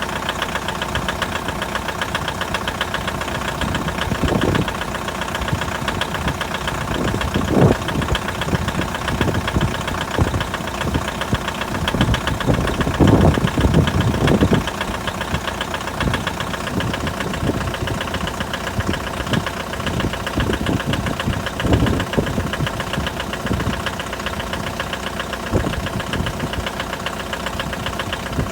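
Mitsubishi 4D56 2.5-litre turbodiesel idling cold, with a steady rapid clatter and a knock that is heard when the engine is cold. A few brief louder moments come through the steady idle.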